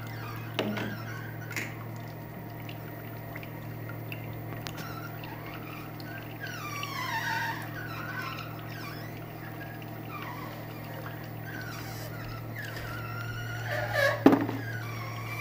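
CP-20s electric cold oil press running with a steady low hum while pressing apricot kernels. A sharp knock sounds about 14 seconds in.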